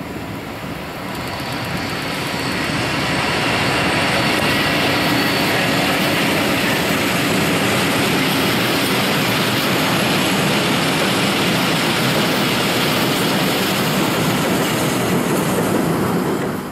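A freight train's open wagons rolling past close by, a steady rumble of wheels on rails that swells over the first few seconds and then holds. It fades out abruptly at the end.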